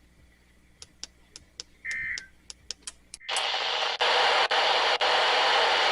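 Weather radio's speaker: a run of faint clicks and one short high beep, then loud, steady static hiss from about three seconds in, cut by brief dropouts.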